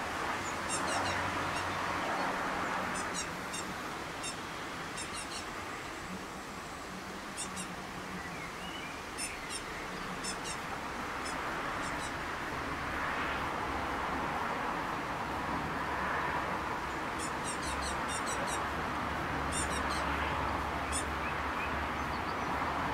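Fledgling tits calling: short, very high, thin notes in quick clusters, repeated on and off throughout. Underneath is a steady background rush.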